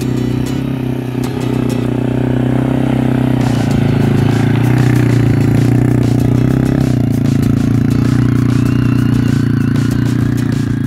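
A small four-wheeler engine running steadily at idle, with light rattling and clatter over it.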